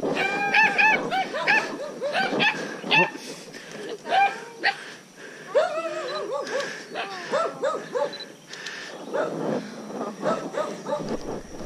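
Dachshunds barking, several dogs yapping in quick runs of short barks that overlap at different pitches, thinning out toward the end.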